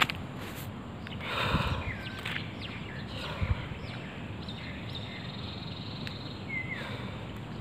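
Birds calling outdoors: several short whistled and chirping notes with quick pitch slides, and one longer held whistle about five seconds in, over steady background noise. A brief rush of noise comes about one and a half seconds in.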